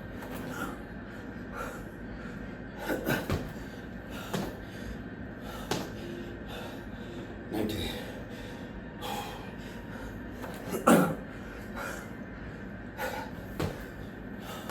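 A man breathing hard from the exertion of burpees, with gasps and sharp puffs of breath every second or two and a few short knocks; the strongest burst comes about eleven seconds in.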